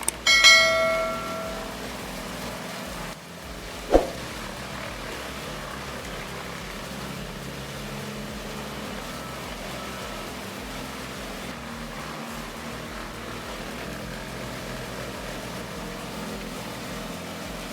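A large machine's engine running steadily under background music. Near the start there is a loud ringing hit that fades over about a second and a half, and a single sharp hit about 4 seconds in.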